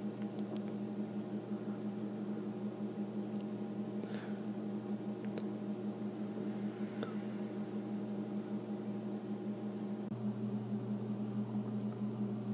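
Steady low hum with faint hiss from a voice-over microphone's background noise, with a few faint clicks. The hum grows slightly stronger near the end.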